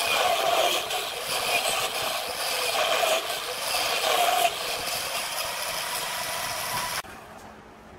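Wood lathe spinning a rough, uneven tree-base blank while a turning tool cuts into it, a rattling scrape that swells every second or so. The sound drops suddenly near the end.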